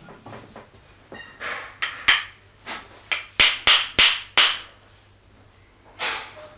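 Metal-headed hand hammer striking a freshly cast pewter piece held in the hand, knocking off the casting burr (deburring). A quick run of sharp taps from about two to four and a half seconds in, then one more near the end, with a brief metallic ring about a second in.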